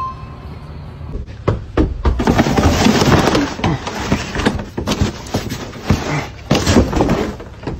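A loud run of knocks, thuds and scraping, beginning about a second and a half in.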